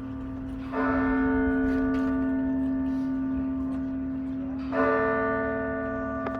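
St Colman's Cathedral bell struck twice, about four seconds apart, each stroke ringing on and slowly fading over the hum of the strokes before.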